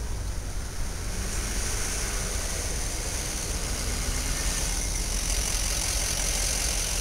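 Steady road-traffic noise from cars and a truck on the road: a low engine rumble with an even hiss over it.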